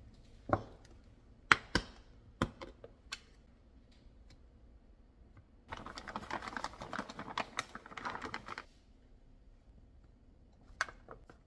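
Snap-lock glass food container's lid latches clicking open, several sharp clicks in the first few seconds. Then about three seconds of dense rustling and clattering as the sliced pumpkin in the container is handled, and a couple of light knocks near the end.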